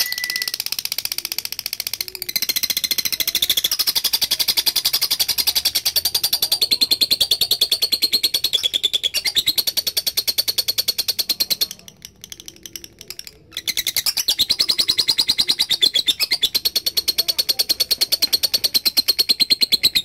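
Lovebird singing a long 'ngekek' chatter: a rapid, high-pitched string of repeated notes for about twelve seconds, a short pause, then another long bout.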